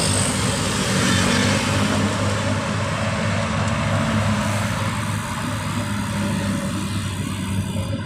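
Road traffic noise: passing motor vehicles' engines and tyres, with a steady low engine hum, easing a little about five seconds in.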